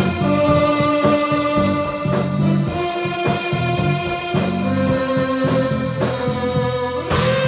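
A rock band improvising: electric guitar holding long sustained notes that shift pitch every second or two, over bass and drums.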